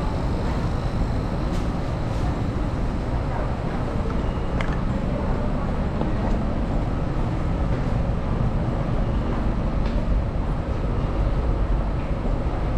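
Steady low rumble of a busy railway station's ambience, with a few faint clicks.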